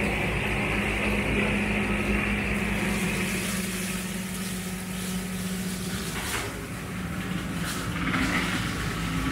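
Massey Ferguson 4707 tractor running under load with a Baumalight CP572 brush cutter spinning as it clears brush: a steady engine drone, with a few sharp cracks between about six and eight and a half seconds in.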